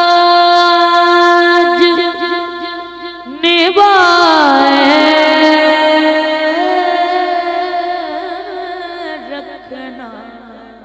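A boy singing a naat into a microphone, drawing out long wavering notes. A new phrase starts about three and a half seconds in, and his last held note fades away near the end.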